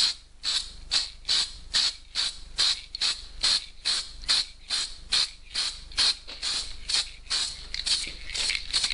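Aerosol can of silver-flake glitter spray paint hissing in short, evenly spaced bursts, about two a second, as a glitter coat goes onto the boat hull.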